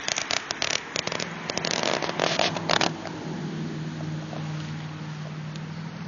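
Close crackling and rustling of the camera being moved through grass and stones for about the first three seconds. Under it, from about a second in, a steady low engine hum starts and carries on after the rustling stops.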